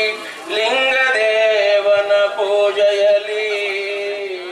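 Man singing a devotional song into a microphone, drawing out long, gently wavering notes.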